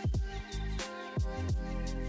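Background music with a steady beat: deep kick drums that drop in pitch, about once a second, under sustained notes.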